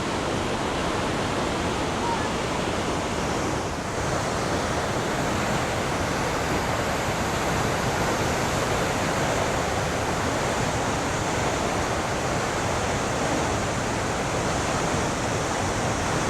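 Cumberland Falls, the river pouring over the falls, heard as a steady, even rush of water.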